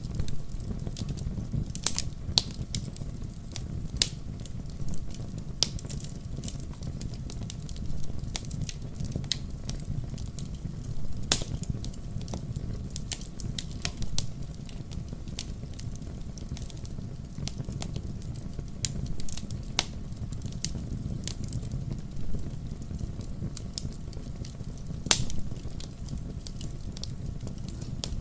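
Wood fire burning in a fireplace: a steady low rumble of flame with irregular sharp crackles and pops, a few of them louder than the rest.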